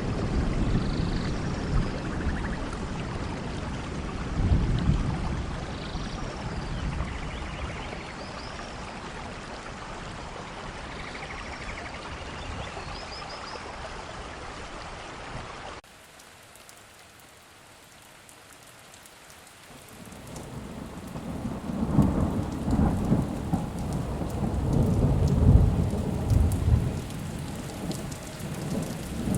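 Steady rain with thunder rumbling low underneath. Just past halfway the recording cuts abruptly to a quieter stretch of rain, and a few seconds later thunder swells up again in rolling rumbles.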